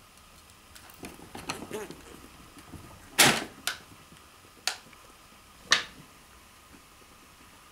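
Chinchillas scuffling over a snack: a brief rustling, pitched chatter about a second in, then four sharp knocks, the loudest about three seconds in.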